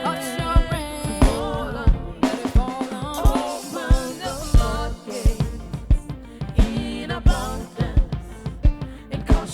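Live gospel worship band playing with a steady drum beat, bass and melodic lines over it.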